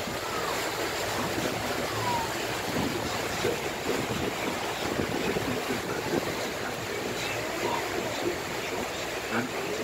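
A river cruise boat under way: steady motor noise mixed with water washing along the hull and wind on the microphone.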